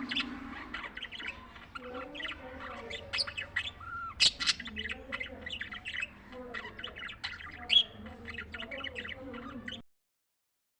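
Budgies (budgerigars) chirping and chattering in quick, overlapping calls, with a few louder squawks. The sound cuts off suddenly near the end.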